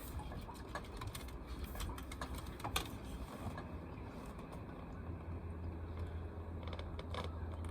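Irregular clicks and small knocks of fishing tackle being handled aboard a boat, over a steady low hum that comes in about halfway through.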